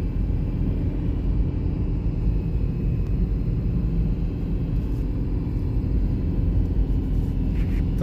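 Steady low rumble of a car's engine and tyres on the road, heard from inside the moving car.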